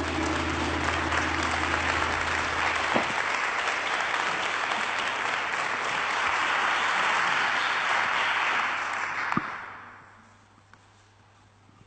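Audience applauding in a large hall, a dense, steady clapping that fades out about nine to ten seconds in. A low steady tone sounds under the first three seconds.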